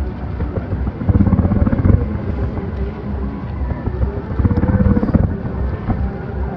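Fireworks bursting in a dense volley, heard from afar as a continuous low rumble of overlapping booms that swells about a second in and again near five seconds.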